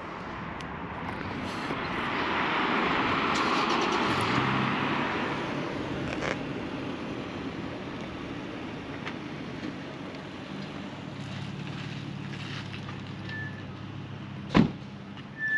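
Street traffic: a vehicle goes by, its noise swelling and fading over a few seconds, followed by a low steady hum. Near the end a car door shuts with a single loud thump.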